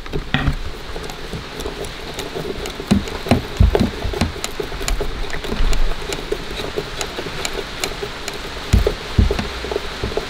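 A curtain popper stud being fitted into the van's sheet-metal window surround by hand: a few dull knocks among light, irregular ticks over a steady hiss.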